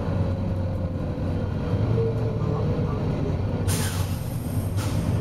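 Volvo B9TL bus's diesel engine running steadily, with a sharp burst of compressed-air hiss from the bus's air system about three and a half seconds in and a shorter hiss about a second later.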